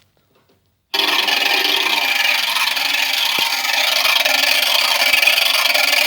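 Homemade 36-way motorized rotary switch running: its small geared 12 V DC motor turns the wiper around the ring of contacts, giving a loud, steady scraping noise that starts suddenly about a second in.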